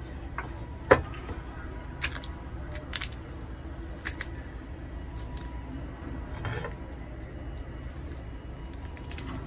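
A cleaver knocking and scraping on a wooden chopping board as a fresh mackerel is cut and cleaned. There is one sharp knock about a second in, lighter taps after it, and a longer scrape past the middle, over a steady low hum.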